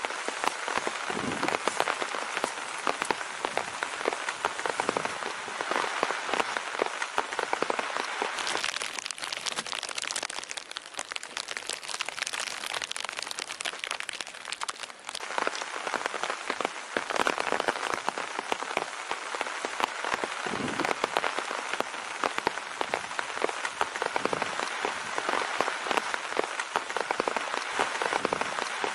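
Steady rain, a dense patter of many drops falling on a surface, easing briefly about halfway through.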